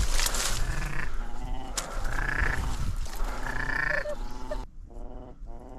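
Diver-duck calls: a string of short, rolling, croaking growls, roughly one a second, over a rushing noise that drops away near the end.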